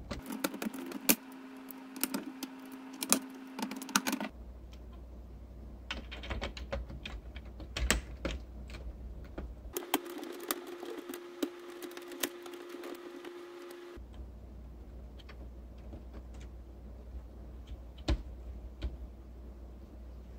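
LEGO Technic plastic parts clicking and snapping as pieces are pressed together and fitted by hand, a rapid, irregular run of sharp clicks. A steady low hum runs for about four seconds near the start and again for about four seconds in the middle.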